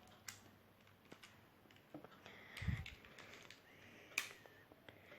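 Faint, scattered clicks and taps of plastic speed-cube pieces being handled and pressed into place, with one dull low thump about two and a half seconds in.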